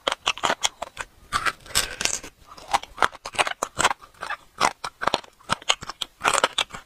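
Close-up eating sounds of braised marrow bone and its meat: a quick, irregular run of wet clicks, smacks and crackles from chewing and pulling at the sticky meat on the bone.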